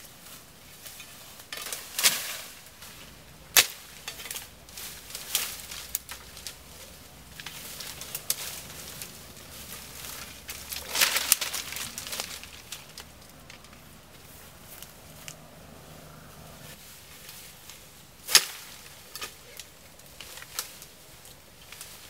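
Brush and leafy undergrowth rustling as it is handled, broken by irregular sharp snaps of stems or branches. The two loudest snaps come a few seconds in and late on.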